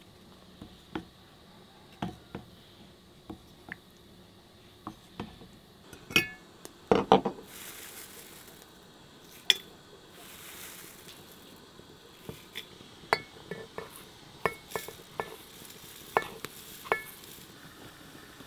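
Light clinks and taps of kitchenware: a wooden spoon stirring applesauce in a ceramic bowl, and dried chamomile flowers handled between a metal tin and a glass teapot. The loudest is a quick run of ringing clinks about six to seven seconds in, followed by a soft hiss.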